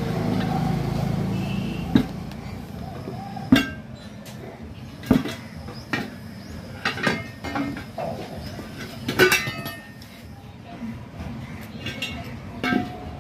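A tyre iron and hammer knock and clink against a steel wheel rim as a tyre is levered off it by hand, with about seven sharp, irregular metallic strikes.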